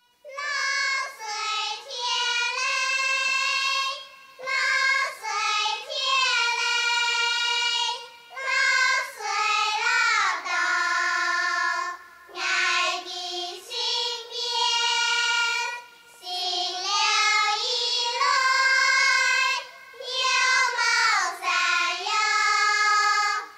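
A group of young girls singing a Hakka mountain song (shan'ge) together, in short phrases with brief breaks between them.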